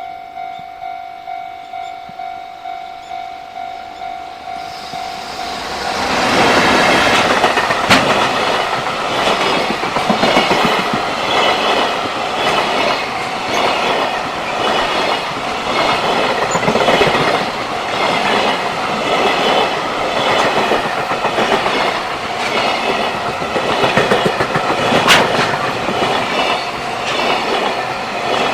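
Japanese level-crossing warning bell ringing, about two strikes a second; about five seconds in, a JR Freight train arrives and passes, its wagon wheels clattering rhythmically over the rail joints and drowning out the bell, with a couple of sharp clanks.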